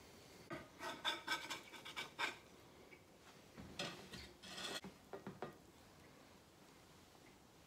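Faint scraping and rubbing of a chef's knife on a wooden cutting board as flattened raw sausage meat is cut and slid off the board, in two short bouts of strokes.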